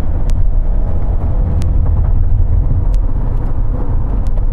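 Steady low rumble of a Hyundai Santa Fe driving through a turn, heard inside the cabin, with a faint click about every 1.3 seconds.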